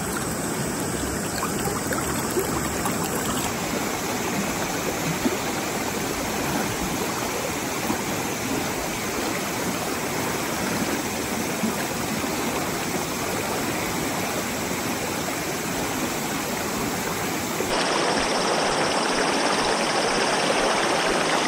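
Mountain river water rushing steadily. The sound changes suddenly about 3.5 seconds in and again near the end, where it turns a little louder and brighter.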